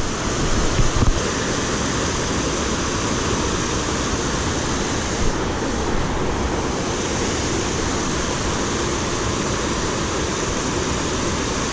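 Steady rushing of flowing creek water, with a few brief louder knocks in the first second.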